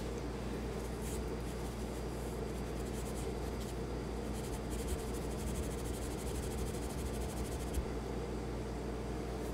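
Steel wool scrubbing the carbon-steel slide of a Kel-Tec P3AT pistol to remove powdery surface rust: quick scratchy strokes, a few at first, then a fast continuous run that stops about two seconds before the end. A steady low hum lies underneath.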